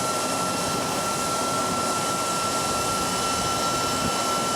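Steady rushing machine noise with a thin high whine held on one pitch.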